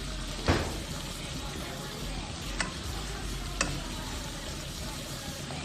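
Shrimp and squid stir-frying in panang curry paste and coconut cream, a steady sizzle while being stirred in the pan. A spatula knocks against the pan three times, loudest about half a second in.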